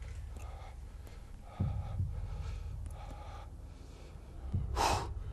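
A person's sharp, noisy breath near the microphone, loudest about 4.8 s in, over a steady low rumble and faint murmuring voices.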